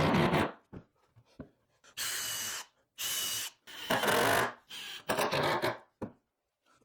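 Power drill running in five short bursts, each about half a second, with gaps between: driving screws into the wooden 2x4 frame.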